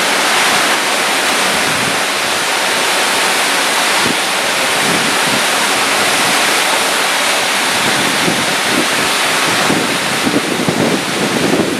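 Steady rush of fast-flowing water running over rocks in a hydro canal, with wind buffeting the microphone in gusts near the end.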